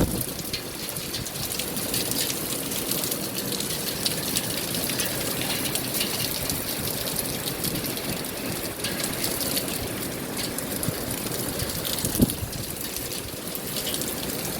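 Rain falling steadily, with many small drop ticks and one sharper knock near the end.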